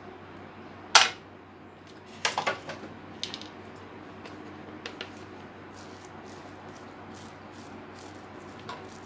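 Plastic parts of a biscuit press being handled and set down on a counter. A sharp knock comes about a second in, then a quick run of clicks and clatter a second later, then a few lighter taps.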